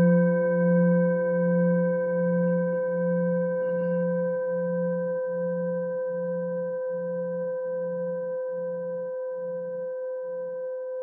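Singing bowl ringing out after a strike: several steady tones hold, while the lowest tone pulses in and out about twice a second and slowly fades, dying away near the end.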